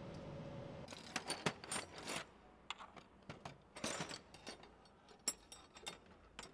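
Steel wrenches and sockets clinking and clattering as they are picked up and put down in a tool tray: irregular sharp metallic clinks with a short ring, starting about a second in after a faint steady hum.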